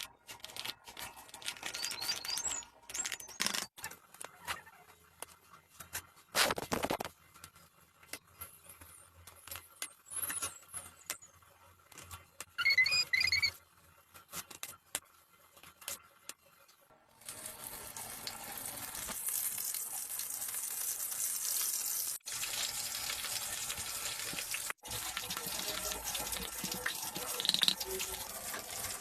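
Kitchen work: scattered clicks and knocks, then about seventeen seconds in a steady hiss starts and keeps going.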